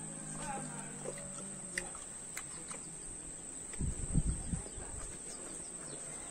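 Insects buzzing steadily at a high pitch, with a short cluster of low, muffled thumps and rumble about four seconds in.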